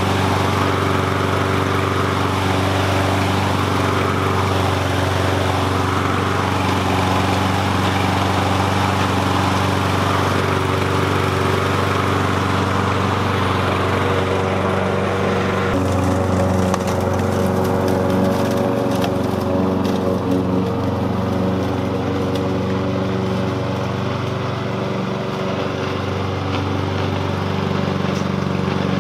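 Gasoline walk-behind push lawn mower running steadily at an even pitch while mowing. About halfway through it turns duller and more distant, with scattered light ticks over the engine.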